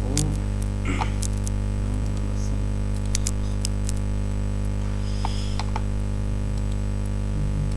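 Steady electrical mains hum, a stack of low even tones, with scattered sharp clicks over it.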